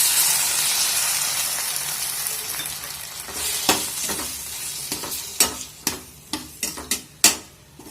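Cornflour slurry hitting a hot pan of onion-tomato masala and fried bread pieces, sizzling loudly at first and fading over about three seconds. Then a utensil knocks and scrapes against the pan as the mixture is stirred.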